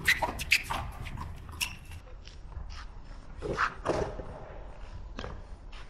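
Racquetball rally on an outdoor concrete court: sharp pops of the rubber ball off racquet strings and the concrete wall, with shoe scuffs. A quick run of hits comes in the first two seconds, another pair around the middle, and a last one near the end.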